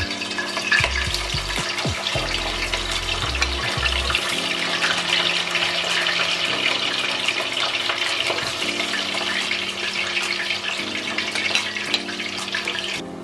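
Bammy soaked in coconut milk sizzling in hot oil in a cast-iron pot as the pieces are lowered in: a steady, dense sizzle that stops abruptly near the end.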